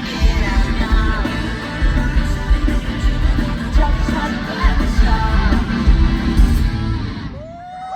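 Live rock-pop band and a male singer performing a song, with heavy drums and bass. The music drops away about seven seconds in, and a single held tone glides up and holds just before the end.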